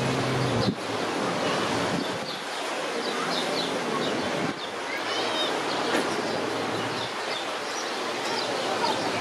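Seaside ambience: a steady wash of surf with small birds chirping over it. A low hum cuts off suddenly just under a second in.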